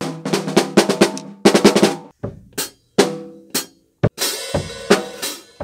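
Drum kit solo: a fast run of snare, tom and bass drum hits in the first two seconds, then more spaced strokes, ending with a cymbal crash ringing out near the end.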